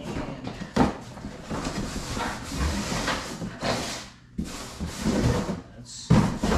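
Cardboard packaging rustling and scraping as it is handled, with a knock about a second in and a louder thud near the end.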